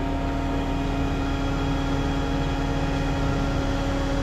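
Heavy equipment engine running at a steady speed, a constant droning hum with no change in pitch.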